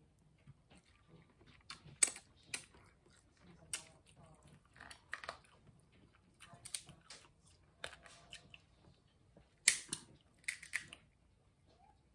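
Snow crab leg shells being snapped and cracked apart by hand, a string of sharp cracks and clicks, the loudest about two-thirds through, between soft close-up chewing and mouth sounds.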